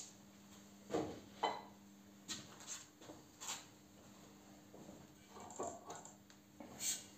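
Faint handling noises of a padded steel bolt being worked by hand: a few soft knocks and rustles, the loudest about a second in, over a steady low hum.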